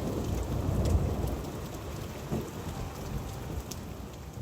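Wood fire burning in a fireplace: a low rumbling roar with scattered sharp crackles and pops, fading gradually toward the end.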